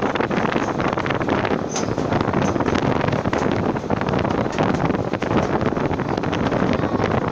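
Train running over a steel truss bridge: a steady, loud rumble with rapid clatter, and wind on the microphone.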